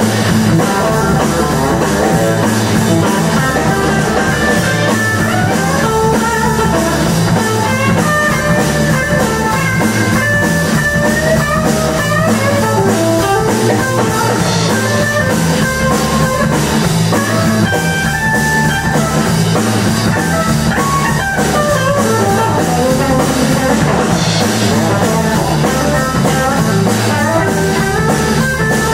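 Live blues-rock band playing an instrumental passage: a guitar lead runs single-note lines over a steady bass line and drum kit.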